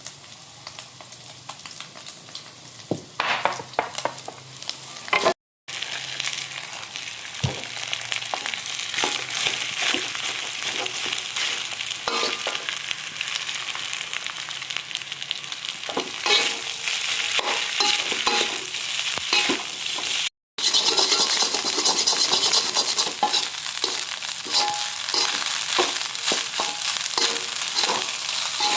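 Fried rice sizzling in a hot pan or wok as it is stir-fried, with a spatula scraping and knocking against the pan. The sound cuts out briefly twice, and the sizzle is louder after the first break, about five seconds in.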